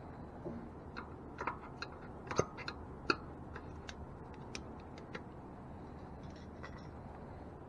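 Light, irregular metallic clicks and ticks of bicycle spokes being handled and worked into the rear hub, with two sharper clicks a little over two and three seconds in.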